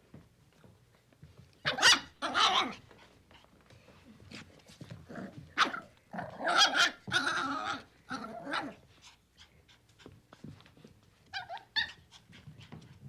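Puppy barking and growling playfully in irregular short bursts, the loudest about two seconds in and again around six to seven seconds, with light clicks and scuffles between the barks.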